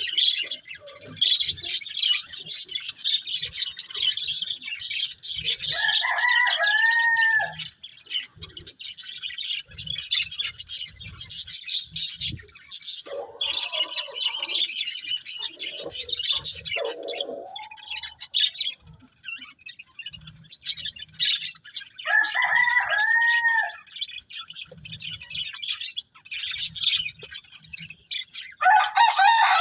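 Budgerigars chattering and warbling continuously in fast, high twittering. A lower, arched two-note call cuts in three times, and there are other lower calls about halfway through.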